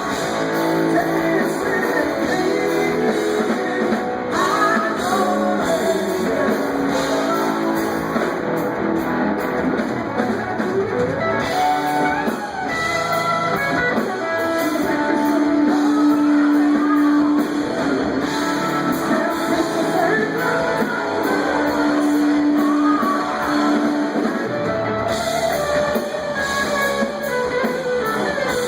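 Live rock band playing: a power trio of electric guitar, bass and drums, with the electric guitar to the fore, playing held and bending notes.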